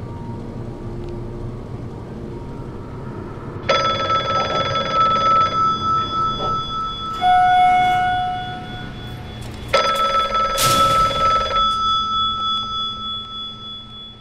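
A bell ringing in two sudden bursts of about two seconds each, with a pulsing, trilled ring, over a low steady hum. A single steady tone sounds between the bursts, and the ring dies away near the end.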